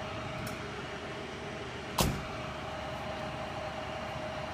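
Steady hum of fire engines idling in the street, with one sharp knock about two seconds in.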